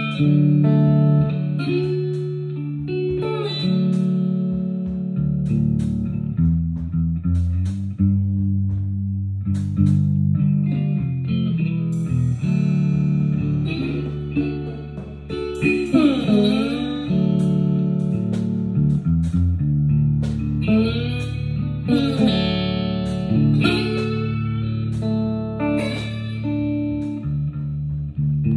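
Electric guitar playing a lead line with bent notes over a steady low bass part and drums.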